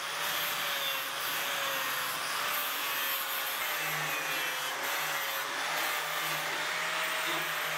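Angle grinder with a flap disc running steadily while grinding the edge of a steel plate, with a steady motor whine over the grinding noise.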